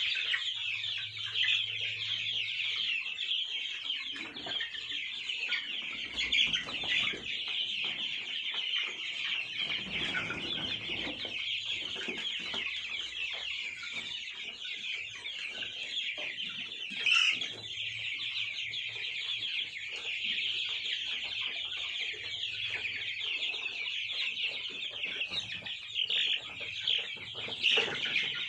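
A flock of 27-day-old Sonali chicks peeping continuously, a dense chorus of overlapping high-pitched cheeps, with a few single calls standing out louder now and then.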